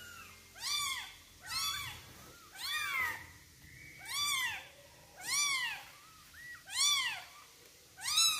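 Nine-day-old kitten mewing over and over: seven high, thin cries, each rising and then falling in pitch, about a second apart.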